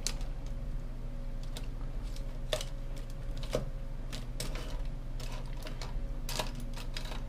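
Irregular light clicks and taps of small objects being handled, over a steady low hum.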